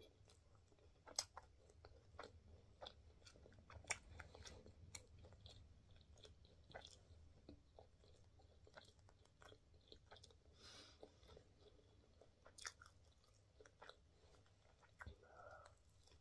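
Faint close-miked chewing and biting of a cheeseburger: soft wet mouth clicks and smacks, scattered and irregular.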